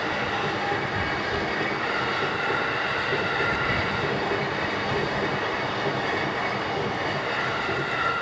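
Electric train running past at speed over a level crossing: a loud, steady rush of wheels on rails with a steady high whine above it.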